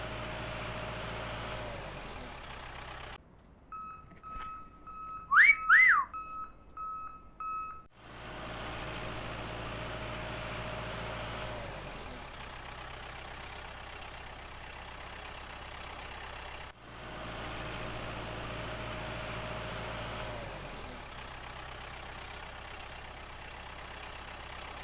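Steady engine hum that repeats in identical stretches, like a looped engine sound. It breaks off from about 3 to 8 seconds in for a steady high beep tone with two quick, loud rising-and-falling whistles.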